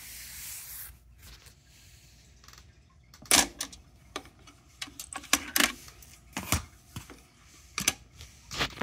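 Clicks and clunks of a Technics 677 cassette deck's controls worked by hand: the transport keys pressed and the cassette door opened. About eight separate clicks, the loudest about three and a half seconds in, with a short hiss near the start.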